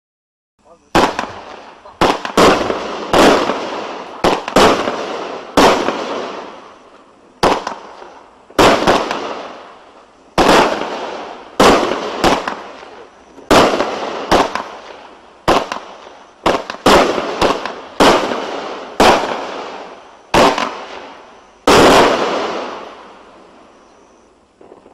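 A 16-shot consumer firework cake, Shattered Rainbow, firing a run of sharp bangs one to two seconds apart, each trailing off in a fading tail. The last and longest bang comes near the end and dies away.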